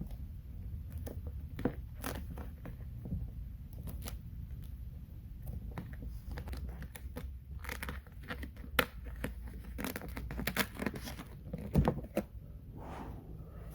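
Vinyl wrap film crinkling, rubbing and crackling as it is tucked and pushed around a Tolex case handle, with scattered small clicks and scrapes that grow busier and louder in the second half.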